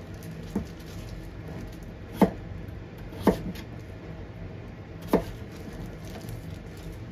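Kitchen knife cutting through peeled potato and knocking on a plastic cutting board. There are four knocks a second or two apart, the first one faint, over a steady low hum.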